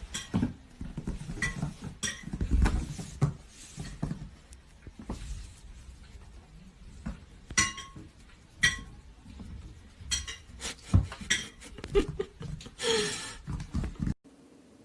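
Irregular light clinks and knocks of hard objects, like dishes or cutlery being knocked about, with a brief cry about thirteen seconds in.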